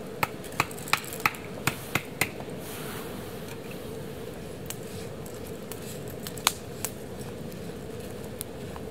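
A pot of broth boiling over a camp stove with a steady hiss. Dry stick-ramen noodles and chopsticks tap and click against the pot, in a quick run of sharp clicks over the first two seconds and a few more later.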